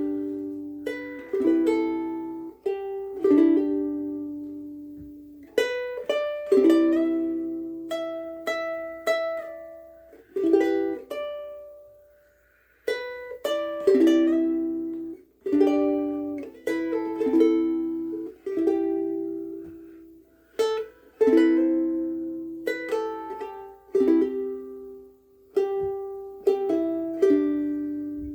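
Kamaka Deluxe soprano ukulele strung with Aquila Sugar strings, playing a slow tune of plucked chords and single notes that ring on and fade between strokes, with a couple of brief pauses.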